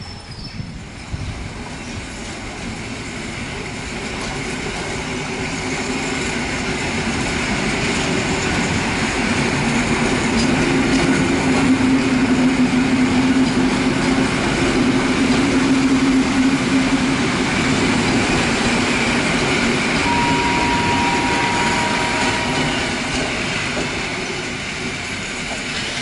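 EN57 electric multiple unit running past on the station track: a steady rumble of wheels and traction equipment that grows louder over the first ten seconds and stays loud, with a low hum throughout and a brief squeal about twenty seconds in.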